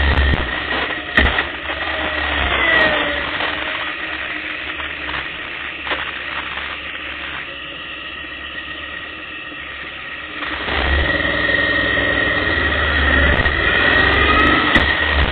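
Motorcycle engine slowing to a stop, idling more quietly for a few seconds, then picking up again as the bike pulls away about ten seconds in.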